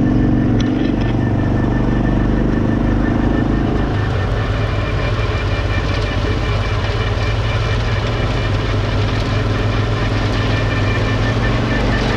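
Kawasaki quad bike engine running steadily as it is ridden, its note dropping about four seconds in.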